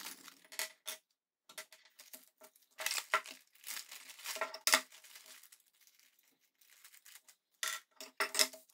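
Clear plastic parts bags crinkling and rustling in irregular bursts as they are opened and emptied, with a quieter pause a little past the middle.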